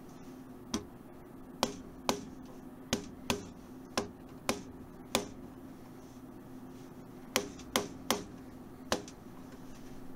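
Fret hammer tapping fret wire into the slots of a rosewood guitar fingerboard, light sharp taps on the fret ends to seat them. About a dozen taps, irregularly spaced, singly and in pairs, with a pause of about two seconds midway.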